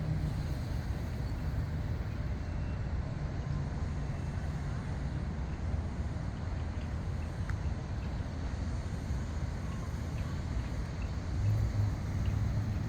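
Steady low rumble of city traffic, with a vehicle engine growing slightly louder near the end.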